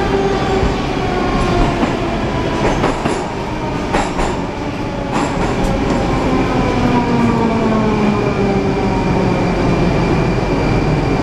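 Rusich 81-740/741 metro train heard from inside the car as it slows down: the traction-motor inverter whine slides steadily down in pitch over the rumble of the wheels on the rails, with a few sharp clicks from the running gear about three to five seconds in.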